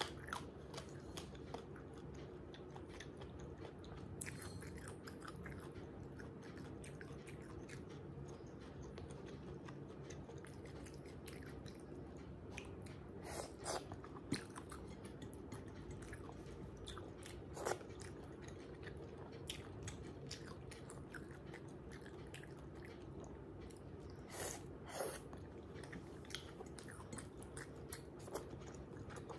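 Close-miked chewing of goat-bone curry and rice, with scattered small clicks and a few louder sharp crunches. Some bites are of a hard, tough piece.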